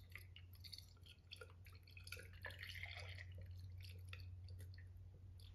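Faint trickle of engine coolant poured slowly in a thin stream from a jug into a plastic filling funnel on the radiator, with small drips and splashes.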